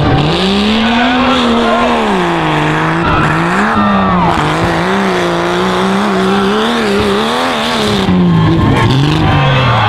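Jeep Cherokee tough truck's engine running hard as it races a dirt course: it revs up sharply at the start, then its pitch keeps rising and falling with the throttle.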